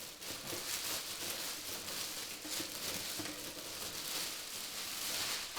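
Plastic wrapping being pulled and peeled off a newly unboxed PC case, crinkling and rustling steadily.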